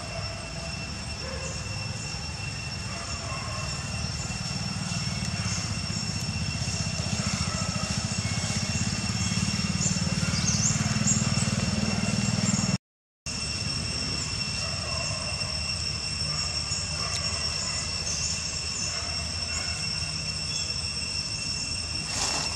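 Steady outdoor ambience: a low rumble that grows louder over the first dozen seconds, under a steady high-pitched whine. The sound drops out completely for a moment about thirteen seconds in.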